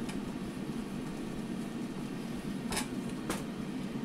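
Air fryer running with a steady low hum from its fan. Two light clicks about half a second apart near the end.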